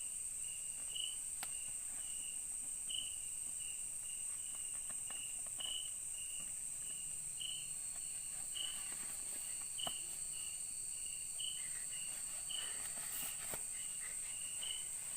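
Night insect chorus: a steady high-pitched drone under a chirp that repeats about twice a second. A few faint clicks and rustles come through it.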